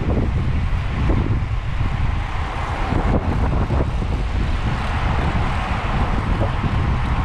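Steady wind rushing and buffeting over the microphone of a cyclist riding along, a heavy low rumble with a rushing hiss above it.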